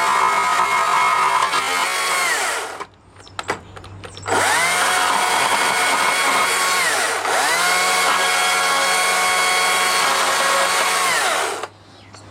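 A power tool's electric motor runs at full speed while carving wood. It winds down and stops after about three seconds, spins back up a second and a half later, dips once midway and winds down again near the end.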